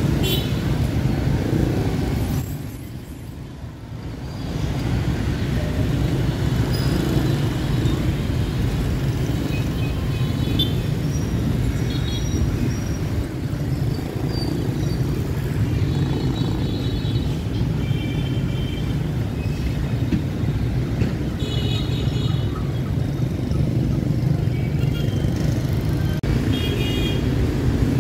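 Dense city street traffic running steadily, with several short horn beeps now and then; the noise drops briefly about three seconds in.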